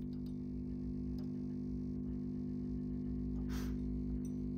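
Steady mains-frequency hum with its overtones from the Neuberger RPM370 tube tester, which hums while current flows through the PL519 valve under test. A brief rustle about three and a half seconds in.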